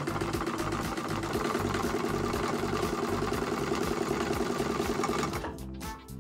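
CIRDAR DH-1 single-thread chainstitch sewing machine, driven by a servo motor, running a seam at a steady, fast, even stitch rate. It stops about five and a half seconds in.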